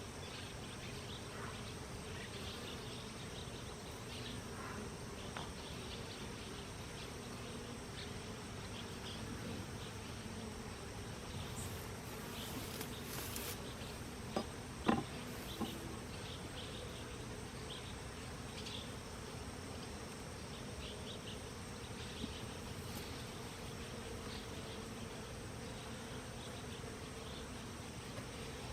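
Honeybees from a knocked-over, disturbed hive buzzing steadily in a low, even hum. A few light knocks come about fifteen seconds in.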